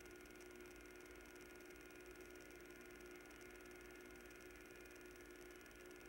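Near silence with a faint, steady hum.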